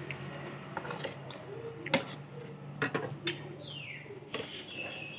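Cutlery and dishes clinking during a meal: scattered single clicks and knocks a second or so apart, with a faint high falling tone and then a steady high tone near the end.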